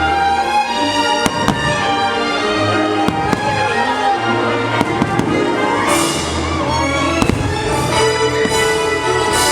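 Fireworks bursting in a string of sharp bangs and pops over loud orchestral show music.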